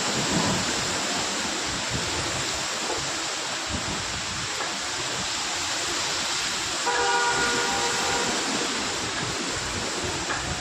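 Heavy rain and strong wind make a steady, dense rushing noise. About seven seconds in, a horn sounds once for about a second and a half.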